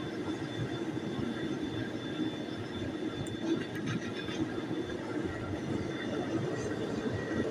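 Gas burner of a small homemade metal-melting furnace running, a steady rushing noise with a faint whistle above it.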